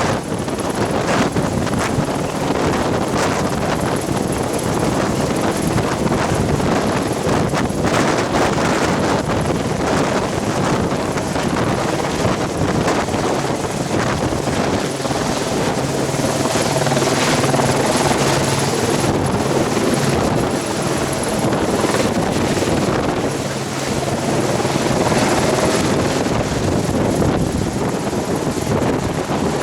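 Helicopter running steadily, its rotor and engine making a loud, continuous noise, with a steady low hum showing through in the middle.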